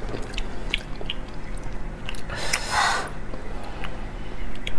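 Close-miked eating of sauced marrow bones: light clicks and taps of a metal spoon and bone pieces, with a louder, longer mouth sound about two and a half seconds in.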